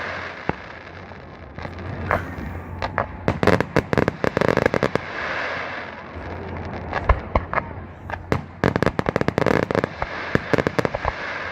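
Fireworks going off: rapid clusters of sharp crackling pops and bangs coming in bursts a few seconds apart, over a steady hiss.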